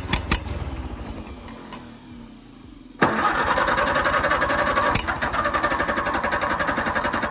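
Allis-Chalmers WD45 tractor's four-cylinder gasoline engine cranking on its starter without catching. It cranks twice with rhythmic chugging: the first crank fades out over the first couple of seconds, and a second, longer crank starts about three seconds in. The engine turns over but does not start.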